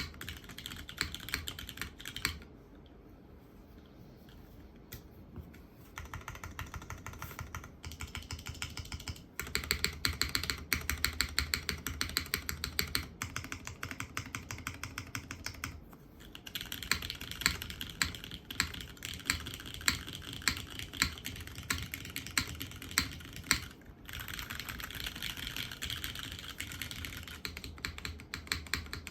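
Mechanical keyboard with lubed, filmed Cherry MX Hyperglide Black linear switches, in a gasket-mounted polycarbonate case with an aluminium plate and GMK keycaps, being typed on in steady clicks. It goes quieter for a few seconds early on. From about halfway the keys are spammed rapidly, with louder strikes about once a second.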